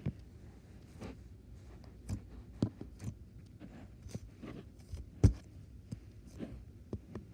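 Homemade cornstarch slime being squished and poked by hand, giving irregular soft clicks and small pops, with one sharper pop about five seconds in.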